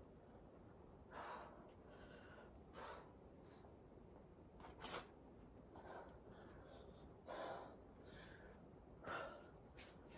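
Faint, sharp breathy exhales and gasps from a climber under exertion on a boulder problem, about six of them spaced a second or two apart.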